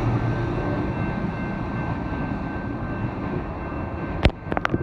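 Amtrak passenger train with a diesel locomotive passing and moving off: a steady rumble of engine and wheels on the rails that slowly fades, with a few sharp clicks near the end.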